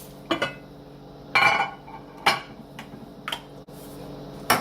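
Kitchen dishes and utensils knocking and clinking: about five separate sharp clinks, some with a brief ring.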